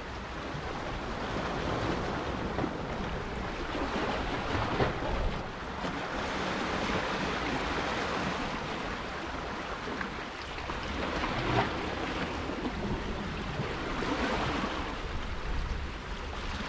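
Sea waves washing against shoreline rocks, the surf swelling and falling back every few seconds.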